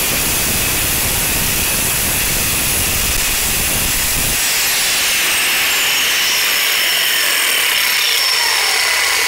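Angle grinder disc grinding the welded metal belt pulley of a Bosch Rotak 32 lawnmower motor while the motor spins it, truing the pulley on rotation. About four seconds in, the grinding noise stops. Falling whines follow as the grinder is taken away, while the mower's electric motor keeps running.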